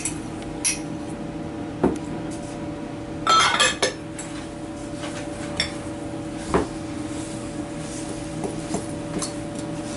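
A metal fork clinking and scraping against a glass mixing bowl as flour and shredded cheddar are stirred together: a few separate sharp clinks and a short burst of scraping about three and a half seconds in. A steady low hum runs underneath.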